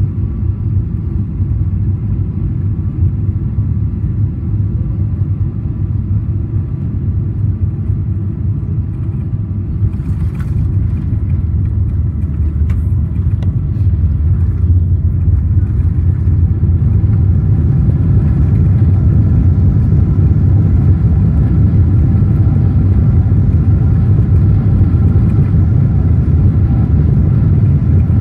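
Boeing 777-300ER's GE90 engines and airflow rumbling steadily in the cabin on final approach. A couple of sharp thuds about ten to thirteen seconds in mark the main gear touching down. From about sixteen seconds on the rumble grows louder as the engines spool up for reverse thrust during the rollout.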